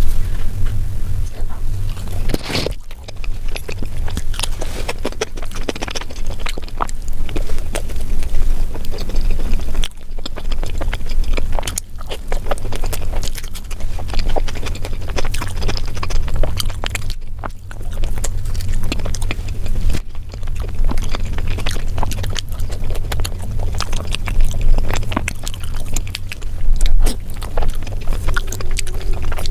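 Close-miked eating sounds of a mukbang: food being chewed, with many short clicks over a heavy low rumble.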